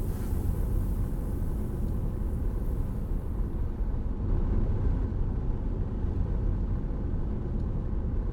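Car driving, with a steady low rumble of road and engine noise. A high hiss fades out about halfway through.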